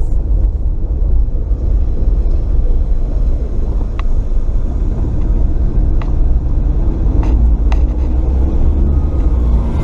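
Toyota RAV4's 3S-FE four-cylinder engine pulling in first gear, with a steady low exhaust rumble from a leaking flex pipe in the downpipe.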